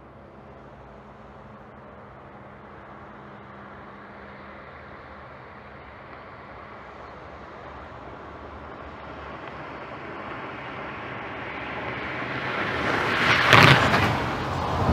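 A road vehicle approaching, its engine and tyre noise growing steadily louder, with a short loud hiss about thirteen and a half seconds in. Near the end, a bus engine running.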